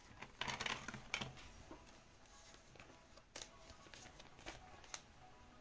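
Faint handling of trading cards: a short rustle about half a second in, then a few light clicks and taps.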